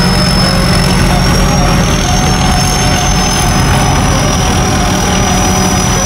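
A large engine running steadily at constant speed: a low, even hum with a high whine above it.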